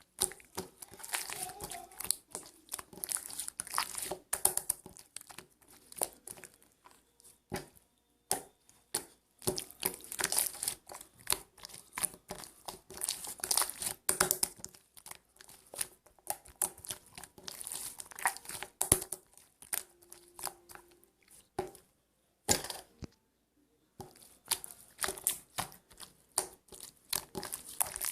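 Slime being squeezed and poked by hand, with dense, irregular crackling and popping clicks and a few short pauses, one of them near the end.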